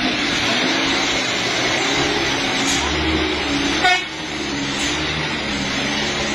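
Cargo truck's engine running with a wavering drone under a steady rush of road noise as it drives on a wet road. A short, sharp loud burst comes about four seconds in, and after it the sound is a little quieter.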